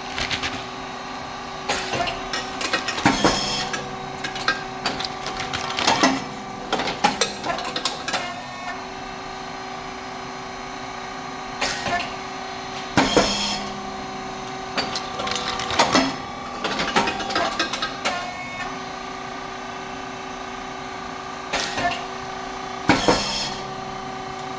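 SYP4509 rice cake popping machine running its cycle: a steady hydraulic pump and motor hum with clacking of the moulds and feeding plate, and a loud pop with a hiss as the heated moulds open and puff the rice cakes, three times about ten seconds apart.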